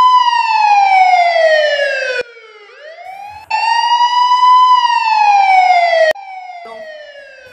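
A loud electronic wail siren: each wail rises, holds briefly, then slides slowly down over two to three seconds. Twice the loud part cuts off abruptly, leaving a quieter tail, as a looped sound effect does.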